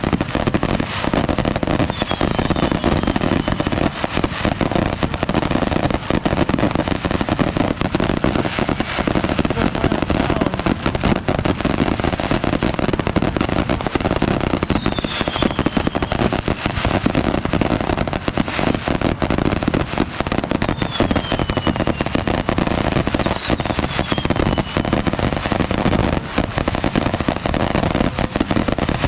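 Fireworks display: a dense, continuous barrage of bangs and crackling, with a few brief falling whistles.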